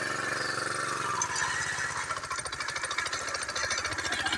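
Small single-cylinder petrol engine running on a homemade walk-behind cultivator with a rapid, even beat, working as the machine is pushed through the soil.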